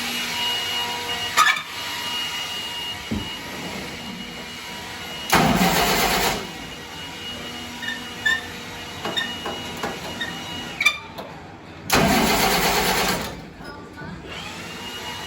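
Jeep engine being cranked by its starter motor in two short bursts of about a second each without catching; the ignition key is off, so it cannot fire. Scattered light clicks and knocks between the bursts.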